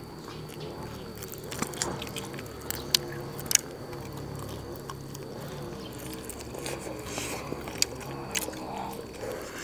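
Close-up biting and chewing of crisp-skinned fried sausages: soft mouth noises with a few sharp, irregular crunchy clicks.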